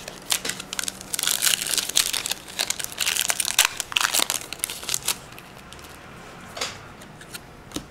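Foil wrapper of a Pokémon trading card booster pack crinkling as it is opened and the cards are pulled out: a dense run of sharp crackles for about five seconds, then only a few light clicks of cards being handled.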